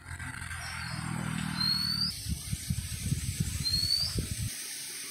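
Coconut water being gulped straight from a husked tender coconut, a run of swallowing and slurping sounds that stops abruptly near the end. Over it, a short rising chirp repeats about every second and a half.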